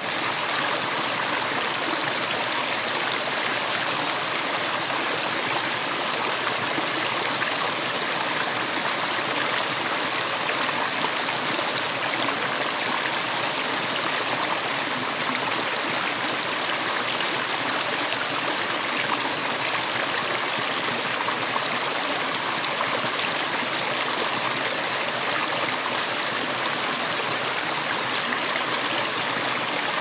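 Mountain stream rushing and splashing over rocks in small cascades: a steady, even rush of water.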